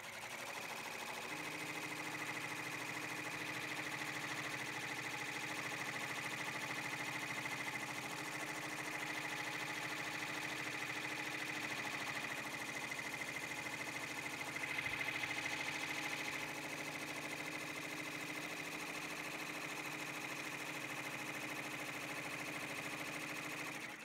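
Brother PR-1000e ten-needle embroidery machine running steadily with a rapid, even stitching rhythm as it sews the tack-down stitch around an appliqué; it stops at the very end.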